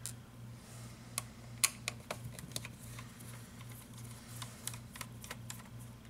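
Light, irregular clicks and taps of a magnetic Phillips screwdriver working screws out of a laptop's plastic base panel, about a dozen scattered clicks.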